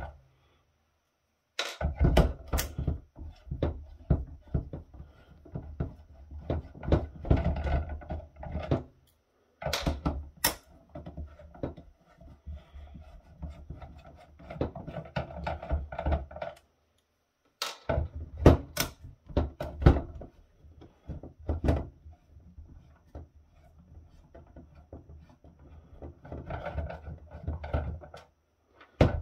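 Screws being worked out of a plastic battery-backup (UPS) case by hand: repeated clicks, knocks and clatter of the tool, the plastic housing and loose screws on the tabletop. The sound comes in several stretches broken by sudden silent gaps.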